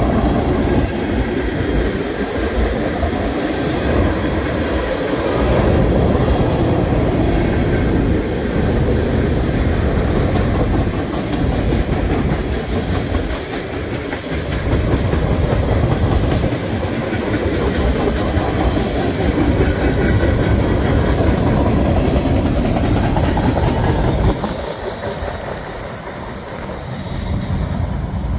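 CN freight train rolling steadily past, a continuous rumble of the cars' wheels on the rails with some clickety-clack over rail joints; the sound eases off somewhat about 24 seconds in.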